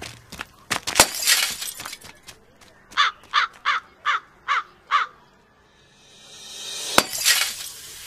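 A glass bottle smashes about a second in, and there is a second crash near the end. Between them come six short, harsh crow caws in quick even succession.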